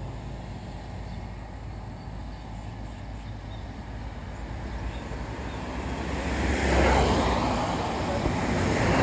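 Roadside traffic: a steady low engine hum, then a vehicle passing close, its engine and tyre noise swelling to a peak about seven seconds in before easing off.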